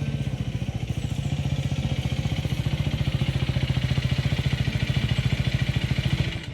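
Husqvarna Svartpilen 250's single-cylinder four-stroke engine idling with an even, rapid beat, cut off suddenly near the end.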